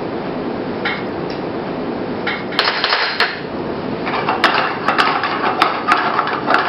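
Butter melting in a hot frying pan on a gas burner, starting to sizzle about two and a half seconds in and then crackling with many sharp pops as it foams.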